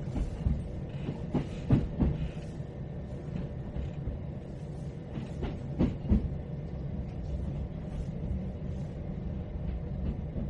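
Inside a moving train carriage: a steady low rumble, with the clack of wheels over rail joints in pairs of knocks about 2 seconds in and again about 6 seconds in.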